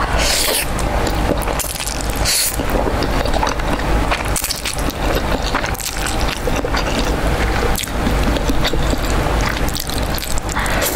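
Close-miked eating sounds: jjajangmyeon noodles being slurped and chewed, with wet smacking and many small clicks.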